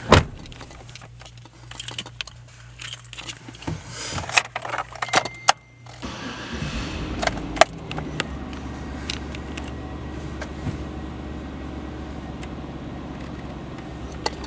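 Keys jangling and several sharp clicks, then about six seconds in the 2008 Chevrolet Avalanche's engine starts and settles into a steady idle.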